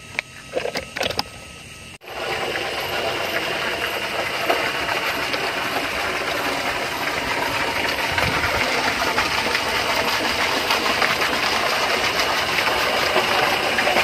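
Water gushing steadily from a pipe pouring into a canal, a dense rushing noise that starts abruptly about two seconds in. A few sharp clicks come before it.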